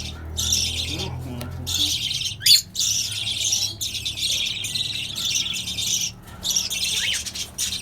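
A mixed flock of Fischer's lovebirds, cockatiels and budgerigars chattering and squawking almost without pause, in dense runs broken by short gaps. A sharp rising whistle about two and a half seconds in, and another near the end.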